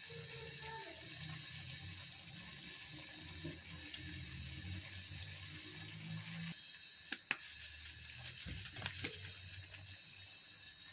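Beans and onions sizzling faintly in a frying pan, over a low hum that stops about six and a half seconds in. A couple of sharp clicks of a utensil against the pan come about seven seconds in.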